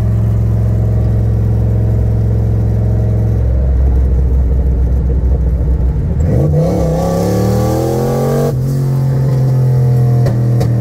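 Turbocharged 1986 Ford Mustang 5.0 (302 V8) heard from inside the cabin. It runs steadily, then accelerates hard from a bit past halfway, its pitch rising with a rushing hiss under boost. The note breaks off sharply about two-thirds in, as at a gear change, holds steady, and eases off near the end.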